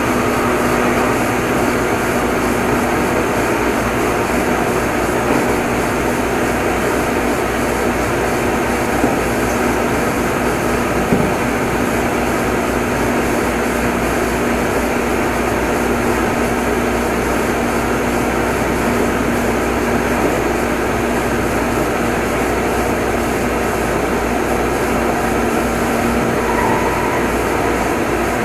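Onboard running sound of a Meitetsu 6500 series electric train in motor car Mo 6461: a steady rumble of wheels and running gear with a constant hum, at an even cruising speed. There are two small knocks about nine and eleven seconds in.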